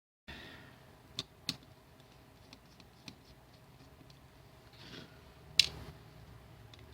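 Scattered sharp clicks and faint ticks of hands working on a computer mouse and its small parts, the loudest click about two-thirds of the way through. The sound cuts in abruptly just after the start.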